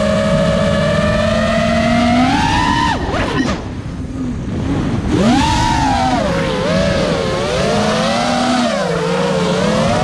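FPV quadcopter's electric motors and propellers whining, the pitch changing with throttle. The whine rises about two seconds in, drops away sharply just before three seconds, and surges back up about five seconds in, then wavers up and down.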